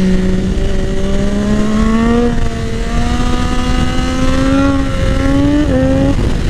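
Triumph Daytona 675R's inline three-cylinder engine, breathing through a full 60 mm aftermarket exhaust line with a Lextek silencer, pulling on the road with its pitch climbing slowly and a brief break near the end. Wind rush on the microphone lies under it.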